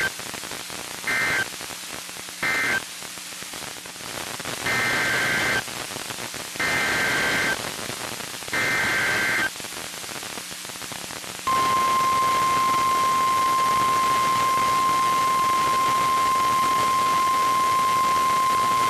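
NOAA Weather Radio Emergency Alert System SAME data bursts over radio static hiss. Three short bursts mark the end of one alert message, then three longer header bursts open the next alert. About eleven seconds in, the steady 1050 Hz weather radio warning alarm tone starts and holds to the end.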